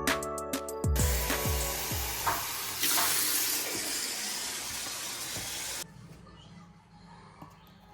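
Music with heavy drum beats ends about a second in, giving way to a steady rushing hiss like running water that cuts off suddenly near six seconds in, leaving faint room tone.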